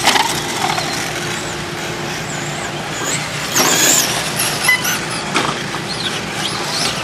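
Electric 1/10-scale short course RC trucks racing on dirt: motors and gears whining, rising and falling in pitch with throttle. A louder rush about three and a half seconds in as one truck passes close.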